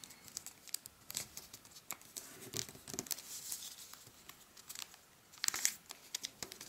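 Origami paper rustling and crinkling as it is folded and creased by hand, in a run of short crackles with a louder burst about five and a half seconds in.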